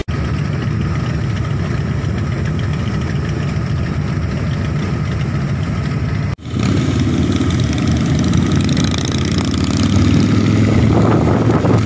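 Cruiser motorcycles with V-twin engines running as a group rides in traffic. About six seconds in the sound cuts out for an instant and comes back deeper and somewhat louder.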